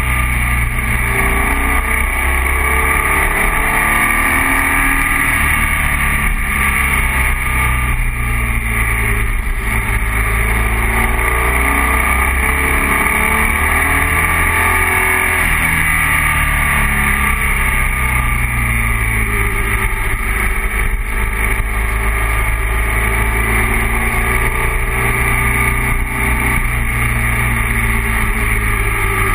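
BMW R1200 motorcycle's boxer-twin engine running under way, its pitch rising and falling as the rider works through the bends, over a steady rush of wind noise.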